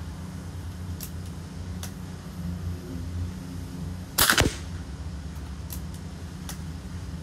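A single shot from a .30 calibre Macavity Arms MA2 PCP air rifle about four seconds in: a sharp crack lasting a fraction of a second. A few faint clicks come before and after it, over a low steady hum.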